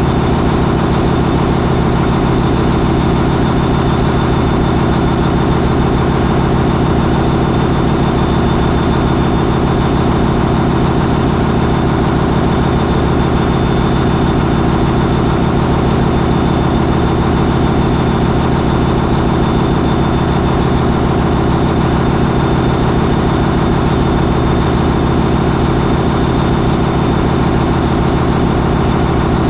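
MAN 20V28/33D STC 20-cylinder V diesel marine main engine with sequential turbocharging, running loud and steady at 800 RPM. A faint high whine holds steady over the drone.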